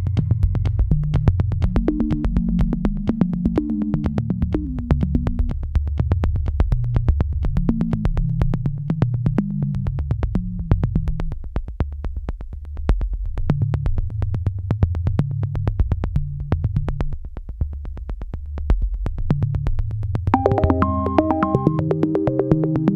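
Background electronic music: synth bass notes over a steady quick beat, with a higher keyboard melody coming in near the end.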